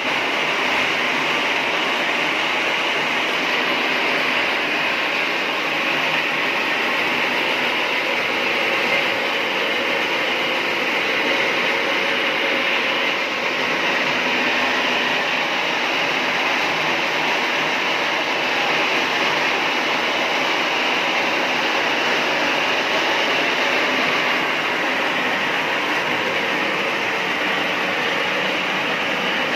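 Homemade rotisserie chicken machine running with a steady, unchanging mechanical noise.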